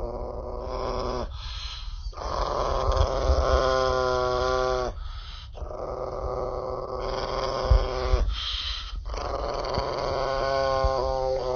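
A small Chihuahua-type dog growling with bared teeth in about four long, drawn-out growls with short breaks between. In two of them the growl turns into a higher, steadier singing tone before it breaks off.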